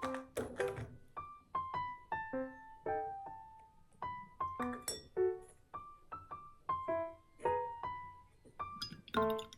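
Background piano music: single notes and occasional chords played at a gentle pace, each note ringing and fading.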